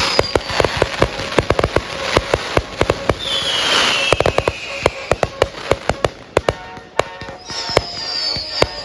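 Consumer fireworks going off in quick succession: rapid bangs and crackling reports, with three whistles that each fall slightly in pitch, near the start, in the middle and near the end.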